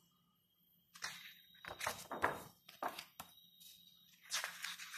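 Pages of a large photo book being turned by hand: a series of short paper swishes and rustles, starting about a second in.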